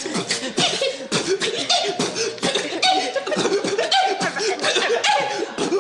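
Two boys beatboxing together: a quick, steady run of mouth-made drum beats and clicks.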